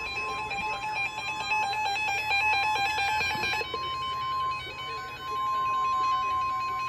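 Weather radio warning alarm: one long, steady single-pitch tone, the signal that a warning broadcast is about to follow, over a layered pattern of electronic alert beeps from the receivers that changes about halfway through.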